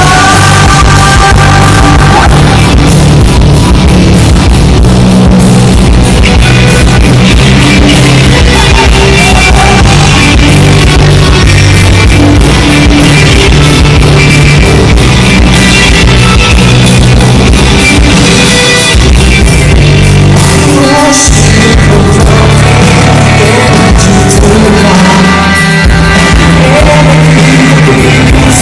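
Rock band playing live and very loud, with singing over a steady drum beat.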